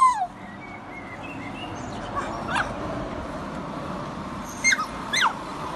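French Bulldog whining: a loud falling whine at the start, a faint one about two and a half seconds in, and two short high whimpers dropping sharply in pitch near the end. She is whining at being left behind while her friend goes walking.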